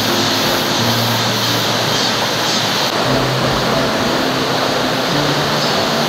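Shallow mountain stream running over stones, a steady rush of water, with background music's low notes moving along under it.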